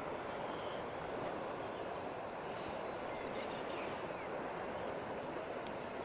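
Steady rushing of a fast river running high and in flood through rapids, with a few short bursts of quick, high chirping bird calls over it.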